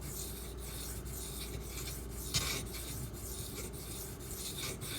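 Spyderco Salt knife's H1 steel blade being stroked across a 6000-grit water stone: a gritty rubbing in repeated passes, about two a second, with one firmer stroke about halfway through.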